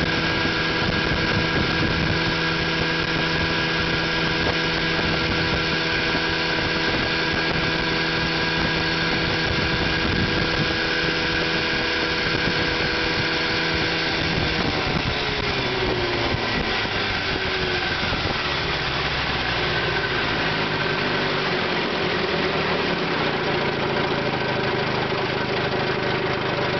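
A 1967 Evinrude 18 hp Fastwin two-cylinder two-stroke outboard runs steadily at high speed over rushing water. About halfway through its pitch falls as the throttle is pulled back, and it settles into a slow, lower-pitched run.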